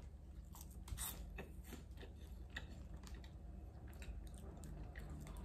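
A person biting into and chewing pufuleți, Romanian puffed corn snacks: faint, irregular crunching.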